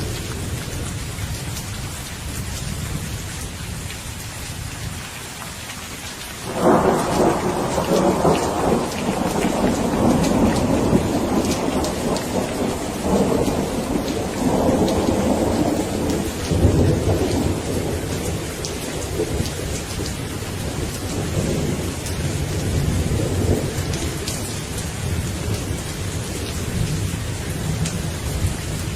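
Steady rain falling in a thunderstorm. About a quarter of the way in, a sudden loud clap of thunder breaks and rolls on in several surges for around ten seconds, then eases to a low rumble under the rain.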